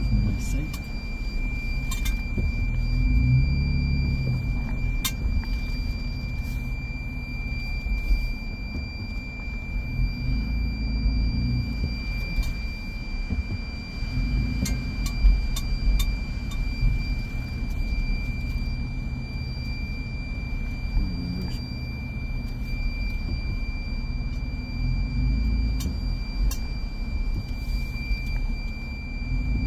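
Low rumble inside a vehicle's cab as it moves slowly over rough ground, swelling and easing, with scattered knocks and rattles. A steady high-pitched whine runs underneath.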